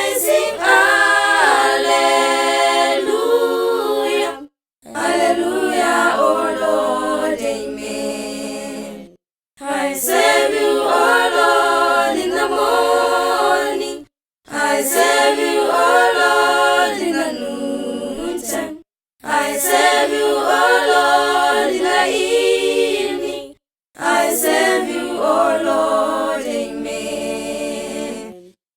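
An a cappella vocal group singing in harmony, without instruments, in phrases of about four to five seconds, each cut off by a brief full silence.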